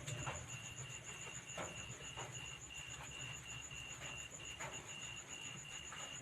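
Insects, likely crickets, chirping in a steady high pulsing trill about three pulses a second, over a low hum, with a few faint clicks.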